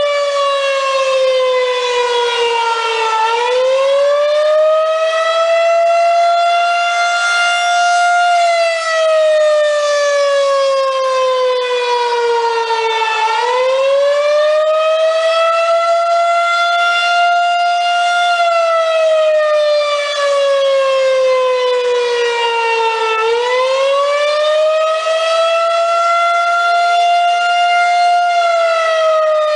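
Federal Signal 2001-130 rotating single-tone electromechanical outdoor warning siren sounding a wail. Its pitch climbs over a few seconds, holds briefly, then slides slowly back down, in cycles about ten seconds long.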